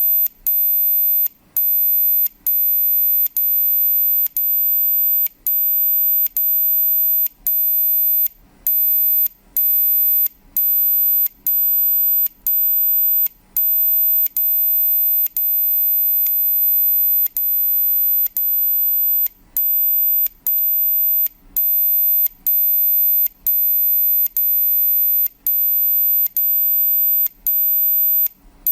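Radio-controlled clock time-code signal: a very high-pitched steady tone played through a speaker, switched off briefly about once a second, with some gaps noticeably longer than others as the pulses code the time for the clock to pick up.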